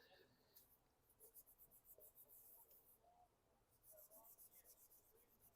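Near silence, with faint, rapid scratching strokes in two short runs.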